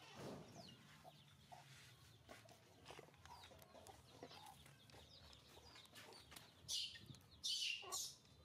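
Faint, scattered short animal calls, with two louder, sharper calls about seven and eight seconds in.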